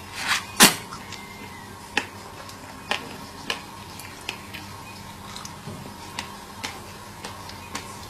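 Wet mouth sounds of someone eating a juicy strawberry: a loud slurp about half a second in, then scattered short lip smacks and clicks as she sucks on and bites the fruit.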